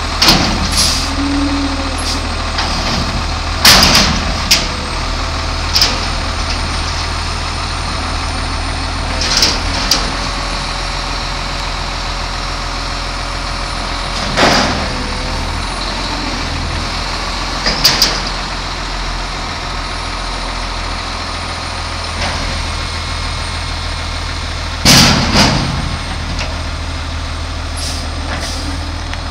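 2007 American LaFrance garbage truck's engine running steadily while its automated arm lifts a dumpster over the cab and empties it, with a series of loud metal bangs as the container is tipped and shaken out and then set back down.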